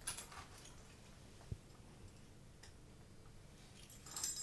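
Faint clicks and rattles from a guide dog's harness as it is fitted and clipped onto the dog, with a soft knock about one and a half seconds in and a brief jingle of the metal fittings near the end.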